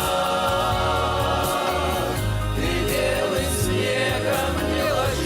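Russian folk-pop song: a vocal ensemble sings the chorus over an instrumental backing with a steady bass beat.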